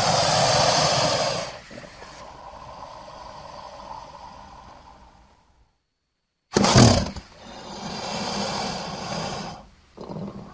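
Crocodilian calls: a loud, rough call that breaks off about a second and a half in and trails away. After a few seconds of silence a second loud call begins abruptly, with another starting near the end.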